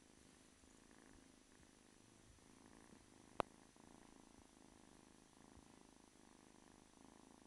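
Faint, steady purring of an 8–9-week-old kitten being scratched under the chin, with slow swells. A single sharp click about three and a half seconds in.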